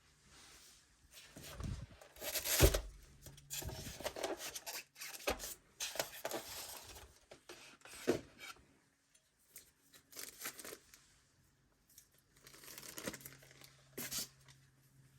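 Packaging being unwrapped by hand: wrapping tearing and crinkling in irregular rustles, with handling knocks, the loudest about two and a half seconds in.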